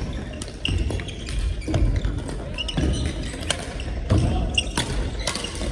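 Badminton rally: rackets striking the shuttlecock in sharp cracks roughly once a second, with footfalls and short shoe squeaks on the wooden court floor, echoing in a large hall.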